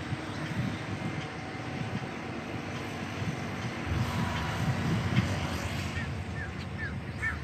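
A passing train rumbling steadily, with a few short high chirps near the end.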